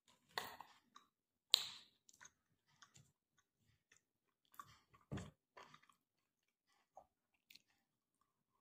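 A person chewing and eating roti with roasted cauliflower: close mouth sounds and small smacks and clicks in short, irregular spells, the loudest about a second and a half in and again about five seconds in.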